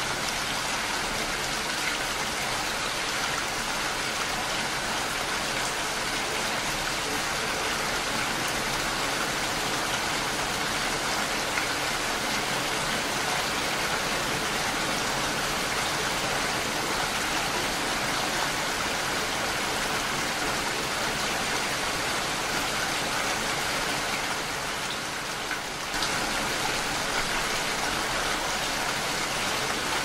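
Steady rain falling, a dense even hiss of drops. About 24 seconds in it softens slightly for a second or two, then comes back abruptly.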